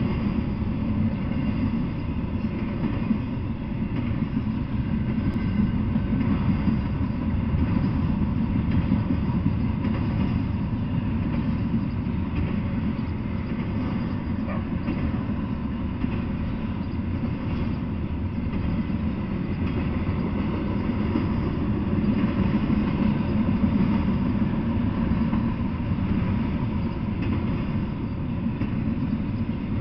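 Double-stack intermodal freight train rolling past: a steady, low rumble of steel wheels on the rails that swells and eases slightly as the wagons go by.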